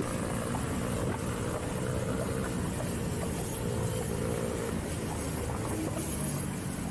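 Motorcycle engines running while riding in traffic, with wind rushing over the helmet-camera microphone.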